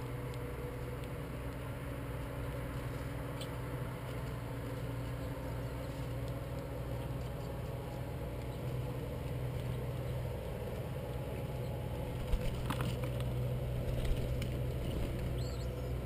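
Steady low rumble, with a few faint chirps from small birds and a couple of light taps near the end.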